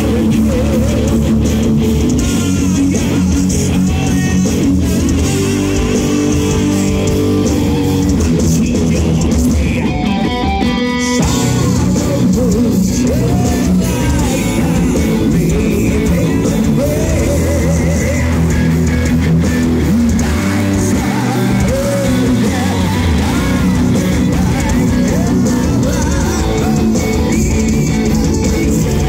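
A metal band playing live through a PA: distorted electric guitars, bass guitar and drums with a singer's voice, heard from among the audience. About ten seconds in the drums and cymbals stop for a moment while a lone guitar figure carries on, then the full band comes back.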